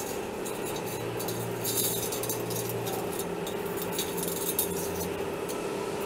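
Steel band-saw blade clinking and scraping against the sawmill's wheel and guard as it is fitted by hand. There are light metallic clicks about a second in and again near the end, over a steady background hum.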